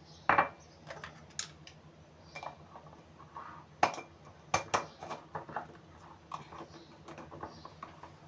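Glass spice jars handled and set down on a granite countertop: an irregular run of sharp clinks and knocks, the loudest near the start and a cluster about four to five seconds in.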